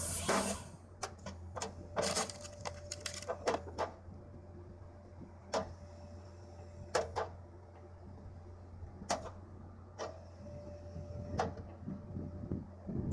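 Wood-processing machinery working: a steady low hum under a string of sharp clicks and knocks, with a short steady whine twice.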